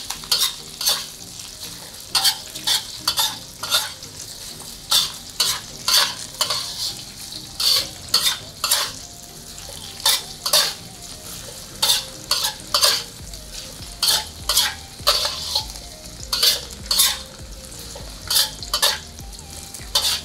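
Shiitake mushrooms frying in hot oil with a steady sizzle. A stirring utensil scrapes and knocks against the pan in quick, irregular strokes, about one or two a second, as the mushrooms are fried until yellowish.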